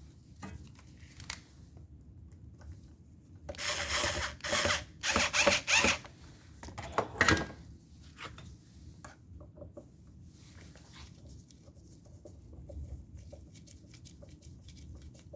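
Electric chainsaw parts being handled and fitted together: a run of short scraping, rattling bursts about four to six seconds in, one more sharp burst just after, and light clicks of handling otherwise.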